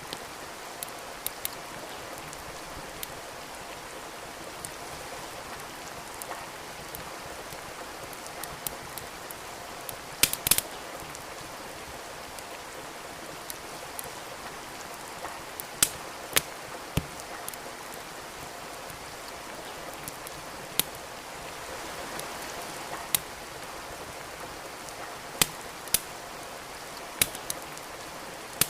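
Steady rain with a wood fire crackling in a fireplace: sharp pops at irregular intervals of a second or several, with a quick cluster of the loudest pops about ten seconds in.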